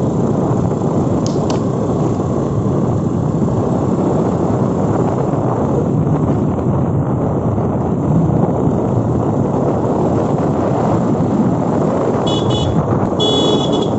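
Steady noise of a motorcycle ride: the engine running and wind rushing over the microphone. Near the end a vehicle horn toots twice in short beeps.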